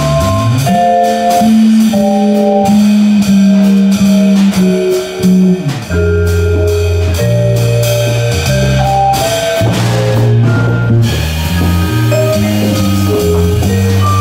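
Live jazz waltz: a vibraphone takes the lead with a run of short, ringing mallet notes over walking electric bass and a drum kit with cymbals.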